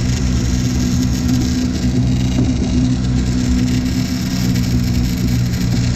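Small outboard motor on an inflatable boat running steadily at trolling speed, a constant hum, over the rushing hiss of the wake and wind.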